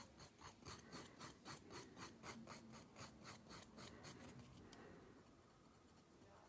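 Hand nail file (100/180 grit) rasping back and forth across a fingernail in quick, faint strokes, about four or five a second, fading out after about four seconds.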